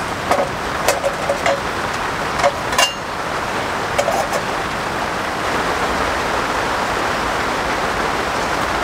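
Steady rain pattering on the polycotton canvas of a tent, heard from inside. A few light clicks and knocks of camping gear being handled come in the first few seconds.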